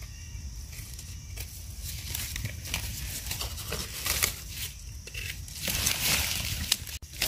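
Dry leaf litter rustling and crackling as someone moves and handles freshly picked mushrooms, with irregular small clicks and a louder stretch of rustling about six seconds in.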